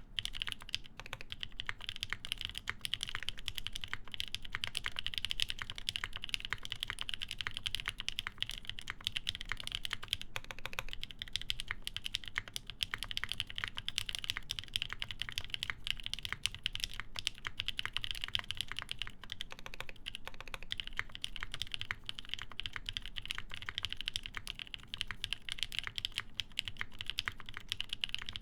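Continuous fast typing on a plateless, PCB-mounted mechanical keyboard with lubed linear NK Nolives switches and GMK Dolch keycaps: a dense, even run of keystroke clicks.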